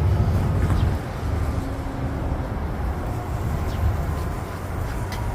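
Steady low rumble of city street traffic, with a few faint, short bird chirps over it.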